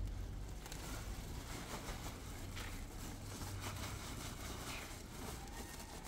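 Faint rustling with many light scattered ticks, over a low hum that is loudest in the first second.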